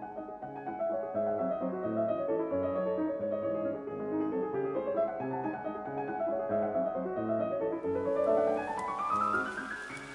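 Background piano music, with a rising run of notes near the end.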